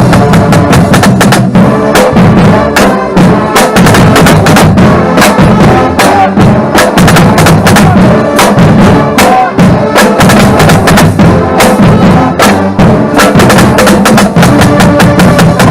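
Marching drumline playing a loud, dense passage of rapid drum strokes.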